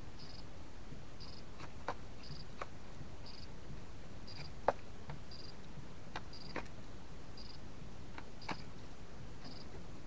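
Sharp irregular taps of a pheasant pecking at food, six in all, the loudest about halfway through. Under them, a faint high chirp repeats evenly about every three-quarters of a second.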